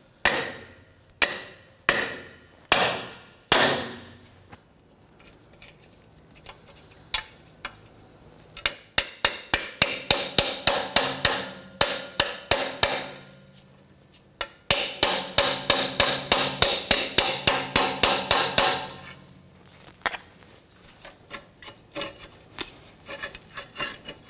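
Hammer blows on a flat steel bar set against the rusted exhaust flange joint, knocking the rear catalytic converter loose from the flex pipe. A few single ringing metal blows about a second apart come first, then two fast runs of several blows a second, then lighter taps near the end.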